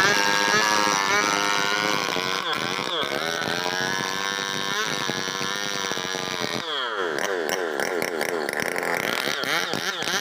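Stihl 070 two-stroke chainsaw running under cutting load, its chain nearly worn down, engine speed rising and falling continually. About two-thirds of the way through the revs drop sharply, then climb back up.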